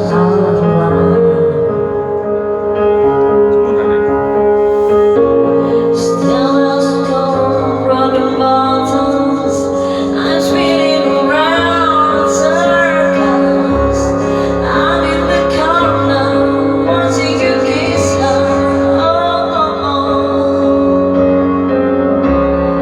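Music: a woman singing a slow melody with wide vibrato and ornamented runs over held instrumental accompaniment, the voice most prominent from about halfway through.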